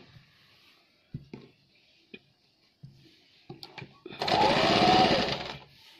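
Electric sewing machine stitching a short run of about a second and a half, starting about four seconds in and stopping abruptly. Before it come a few soft clicks.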